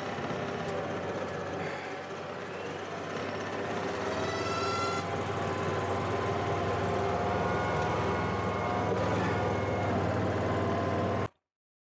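Four-wheeler's engine running steadily as the machine drives slowly over a log bridge, heard from the driver's seat, growing a little louder about four seconds in. The sound cuts off suddenly shortly before the end.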